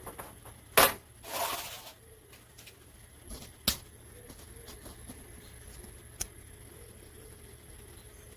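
Parts being handled on a workbench: a sharp click about a second in, a short rustle right after, then two fainter clicks, over a low steady hum.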